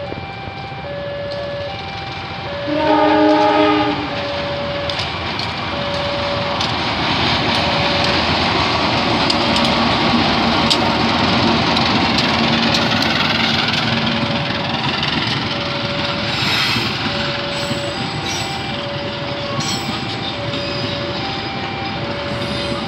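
A level-crossing warning bell rings in short repeated tones, about one every 0.7 seconds. About three seconds in, the CC 203 diesel-electric locomotive sounds its horn once, loudly for about a second. It then passes close by with a heavy rumble and scattered wheel clicks as the passenger coaches roll past.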